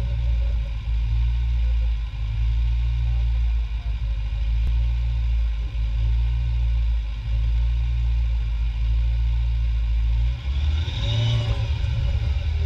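Bradley Fighting Vehicle's diesel engine running steadily, a loud low rumble, with a brief rising-and-falling whine about ten seconds in.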